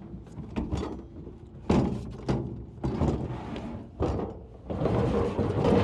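A series of hollow thunks and knocks with scraping and rustling between them: a salvaged plastic car bumper cover being handled and moved into place to be shown.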